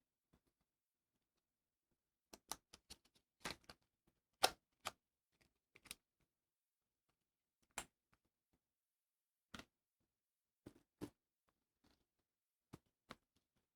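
Unboxing handling: scattered light clicks, taps and brief rustles of cardboard and plastic packaging, irregular and spaced apart, with the loudest rustle about four seconds in.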